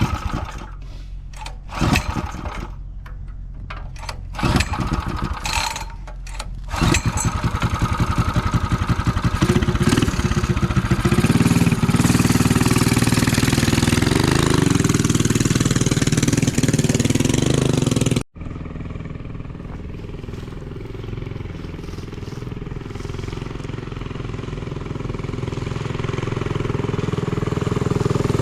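Predator 212 single-cylinder four-stroke engine on a mini chopper: a few short cranking bursts, then it catches about seven seconds in, revs up and runs steadily. Near the end it gets louder as it pulls away.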